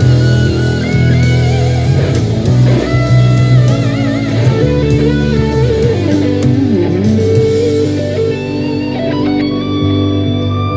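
Electric guitar playing improvised lead lines, with wavering vibrato on held notes and a quick swooping dip in pitch about two-thirds of the way through, over steady low notes underneath.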